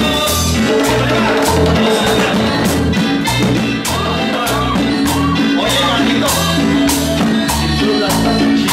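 Live Latin dance music from a band, with congas and a metal güiro scraped over a steady, even beat.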